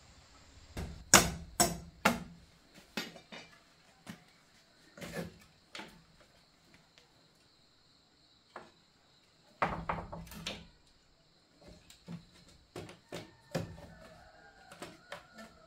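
Irregular sharp knocks and clatters, like hard objects or tools striking, come in small clusters with pauses. The loudest is a quick run of three about a second in, and there is another loud group around the middle.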